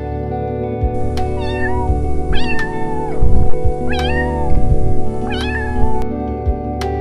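A cat meowing four times in short calls, over steady background music.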